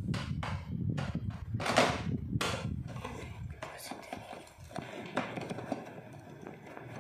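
Hard plastic clicking and knocking as a toy foam-dart blaster and its drum magazine are handled and fitted together, with a few louder knocks in the first couple of seconds and a low handling rumble that dies away about halfway through.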